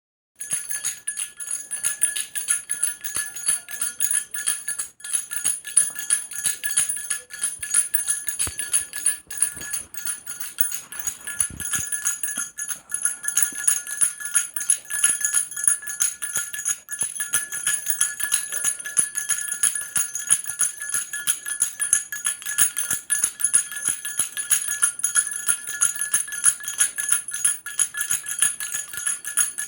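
Baby rattle with small bells shaken steadily, jingling without a break, a fast patter of strikes over a bright ringing tone.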